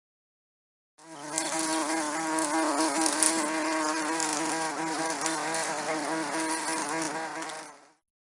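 A bee buzzing: a continuous droning hum whose pitch wavers slightly. It starts about a second in and fades out near the end.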